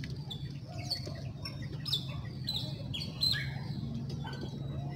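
Small birds chirping, a quick run of short falling calls that thins out after about three and a half seconds, over a steady low hum.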